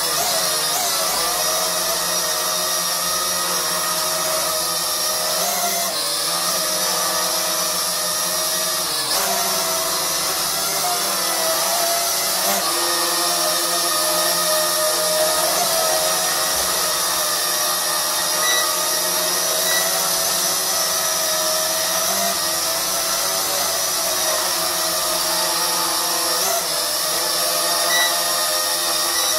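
Small JDRC JD-20S toy quadcopter's motors and propellers whining steadily as it hovers and manoeuvres, the pitch shifting up and down every few seconds with the throttle.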